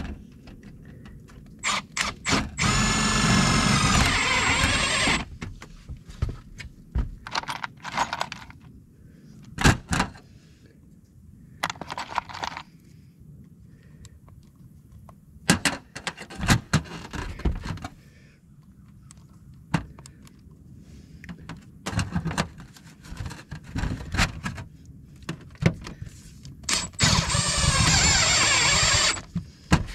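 Power drill driving screws through sheet-metal roof flashing: two runs of a steady motor whine of about two and a half seconds each, one about three seconds in and one near the end. In between, short knocks, clanks and scrapes of the metal and tools being handled.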